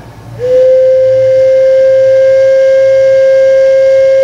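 A wooden stopped-flute organ pipe blown by mouth, sounding one loud, steady note that starts about half a second in and holds. It takes forceful breath because the pipe came from an organ winded at a higher pressure.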